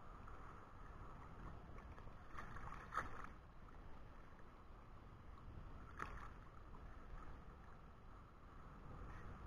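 Faint sea waves lapping and sloshing against a camera bobbing at the water surface, with short sharp splashes about three and six seconds in.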